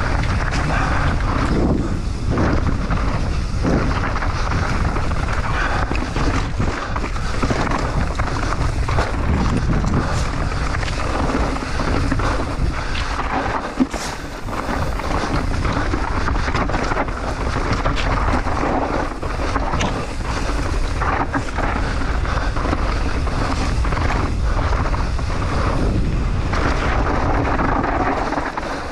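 Wind buffeting the microphone over the rumble of mountain-bike tyres running fast on a dirt and gravel trail, with short rattles and knocks as the bike goes over bumps. A sharp knock comes about 14 seconds in.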